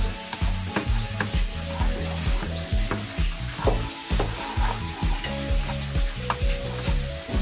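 Garlic cloves frying in hot oil in a pan, sizzling, with a spatula clicking and scraping against the pan as they are stirred. Background music with a steady beat plays underneath.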